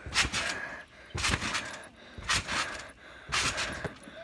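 A trampoline being bounced on: the mat and springs give a short rustling, rattling bounce about once a second, four times.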